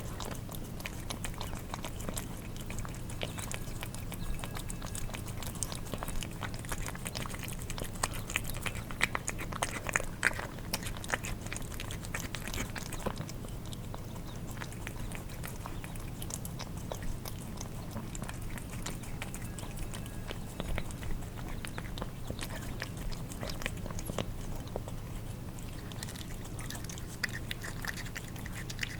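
Cats eating wet food: wet lapping and chewing sounds of tongues and jaws, with many small irregular clicks and smacks, busiest about a third of the way in and again near the end, over a steady low hum.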